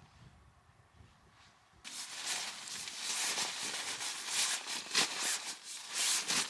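Loud crinkling, crackling rustle of an inflatable sleeping mat's nylon being pressed and rolled up by hand to squeeze the air out, starting about two seconds in after a quiet start.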